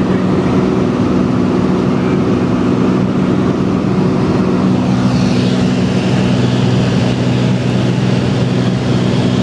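Cessna T-210 Centurion's turbocharged six-cylinder engine and propeller in steady flight: a constant, unchanging drone with a few low steady tones.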